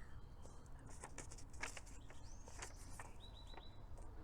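Quiet room tone with faint small clicks and a few faint high bird chirps, including a quick run of four short chirps a little after three seconds in.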